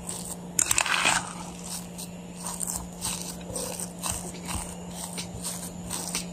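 Metal fork mashing and stirring cooked taro in a glass bowl: repeated squishy mashing strokes against the glass, the loudest about a second in.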